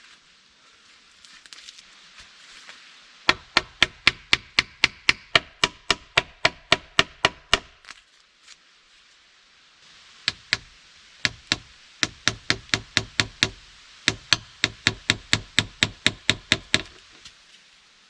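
A hammer tapping nails into wood in quick, even runs of sharp strikes, about four a second. There are two runs with a few single knocks and a pause between them.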